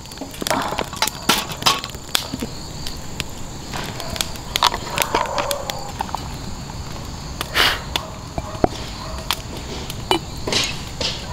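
Scattered clicks and knocks of camp cookware, utensils and a glass bottle being handled and set down, with rustling movement. Makgeolli is poured from the bottle into an enamel cup near the end, over a faint steady high insect chirring.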